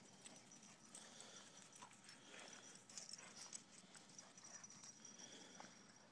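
Faint, quick patter of two dogs' paws running on frosty grass, a rapid run of small taps and thuds.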